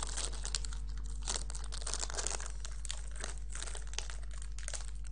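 Plastic snack bag crinkling and crackling in the hands as it is handled and pulled at to get it open, a dense run of irregular crackles.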